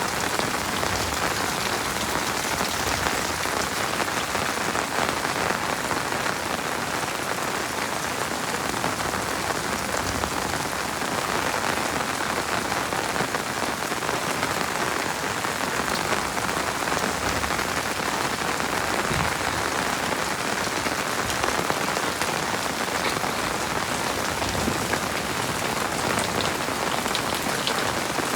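Heavy rain falling steadily, a dense, even patter of drops with no thunder.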